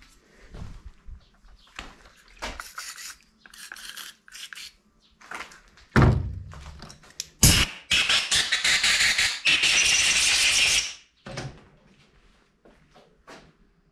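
Small metal parts clicking and knocking as they are handled, with two heavy thumps about six and seven and a half seconds in. Then a green hand-pump sprayer hisses steadily for about three seconds over a motorcycle front brake master cylinder body, stopping abruptly.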